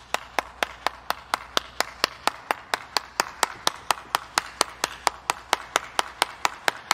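One person clapping their hands steadily, about four claps a second.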